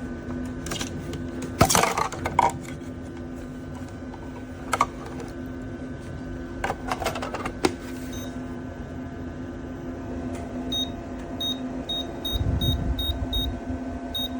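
Small portable evaporative air cooler humming steadily, with a few clicks and knocks of handling in the first half, then from about eleven seconds a run of short, high electronic beeps, about three a second, such as its control buttons give when pressed.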